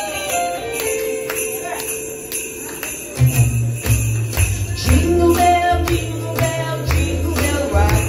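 Sleigh bells shaken on a steady beat in the opening of an upbeat Christmas song, over a held keyboard note; a bass line comes in about three seconds in.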